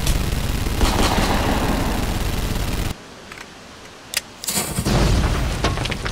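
Sound-effect automatic gunfire: a continuous rapid rattle of shots that cuts off suddenly about three seconds in. After a short lull and a click, a heavy blast sounds near the end.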